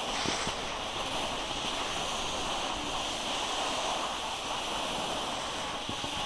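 Steady rushing hiss of a snowboard and the filmer's own gear sliding over packed snow on the way down, mixed with wind on the microphone.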